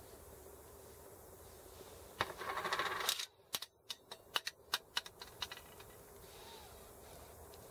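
Small steel parts of a Sturmey-Archer S5C hub clinking in the hands. About two seconds in, a caged ball bearing rattles for about a second as it is set down. This is followed by a string of about ten sharp metallic clicks over the next two seconds as the small geared part is handled.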